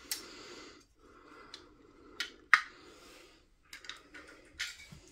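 Light rustling and small sharp clicks as a clear plastic case holding a diamond-painting drill pen is handled, with one sharper click about two and a half seconds in.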